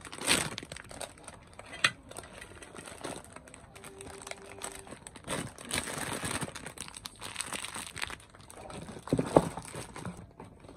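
Clear plastic bag of rolled oats crinkling as it is opened and handled, with the dry rustle of oats poured from it into an aluminium pot.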